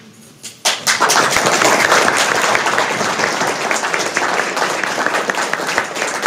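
Audience applause breaks out under a second in: many people clapping at once.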